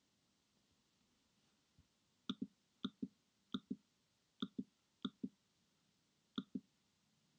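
Computer mouse button clicked six times, each click a sharp press-and-release pair, about one click a second from a little over two seconds in.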